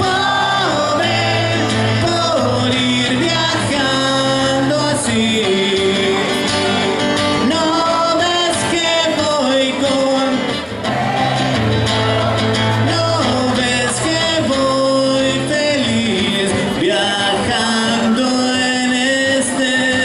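Live rock band playing a song, with a bass line under a melody line.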